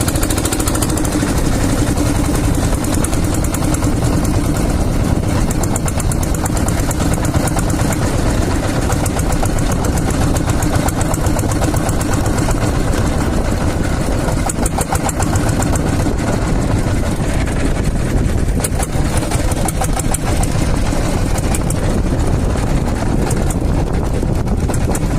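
A vehicle on the move: a steady, loud rush of wind and road noise over the microphone, with an engine running underneath.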